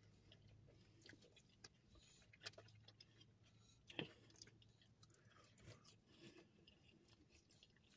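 Near silence with faint chewing as two people eat a burger and tacos, broken by scattered small mouth clicks, the loudest about four seconds in.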